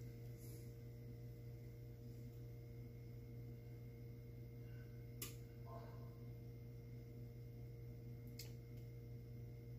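Quiet room tone: a steady low hum, with two faint clicks, one about five seconds in and one near the end.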